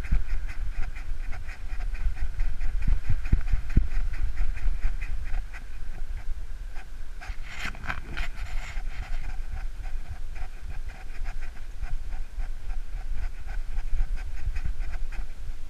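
Small dog panting rapidly and evenly, about five breaths a second, heard up close from the camera on its back, over a low rumble of wind and movement on the microphone.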